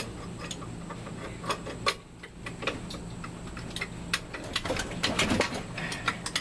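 Irregular sharp metallic clicks and clinks of hand tools and engine parts being handled, coming thickest about five seconds in, over a steady low hum.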